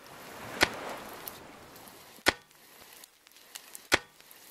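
Three sharp knocks, evenly spaced about a second and a half apart, with a soft swell of hiss under the first one.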